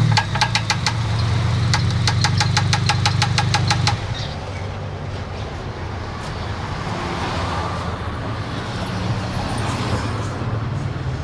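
Car engine running with a fast, even ticking knock, about nine ticks a second, over its low hum; about four seconds in the knocking stops and the engine runs on more quietly and smoothly. The knock is the strange noise whose cause the owner is asking about.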